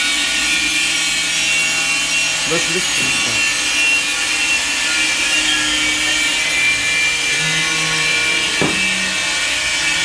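Electric fire alarm bell ringing without a break, a steady metallic clatter, sounding during a test of the fire alarm control panel.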